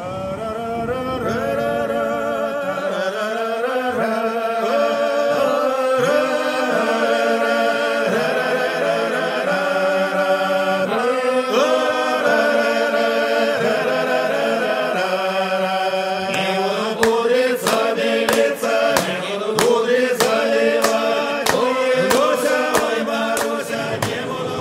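A group of men's voices singing together a cappella in a slow chant, holding long notes. Sharp clicks come in over the singing in the last several seconds.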